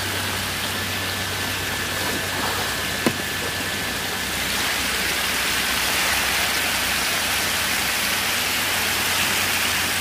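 Steady splashing and pattering of water in a concrete tank crowded with hybrid magur catfish churning at the surface, with water spraying in from inlet pipes. It grows a little louder about halfway through, over a low steady hum.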